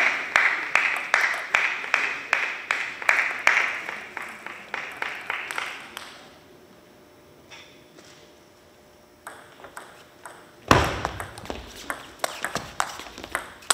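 A celluloid-type table tennis ball bounced repeatedly, about three sharp pings a second, while a serve is readied, then a few seconds of quiet. About eleven seconds in there is a loud thud, then a rally of quick ball strikes on paddles and table.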